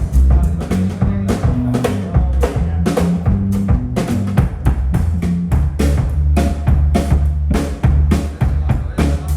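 Live band playing during a soundcheck: a drum kit keeps a steady beat with kick drum and snare over a bass line.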